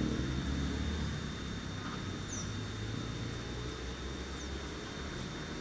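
Outdoor ambience: a low steady rumble with a few faint, short, high chirps that fall in pitch, about two seconds apart.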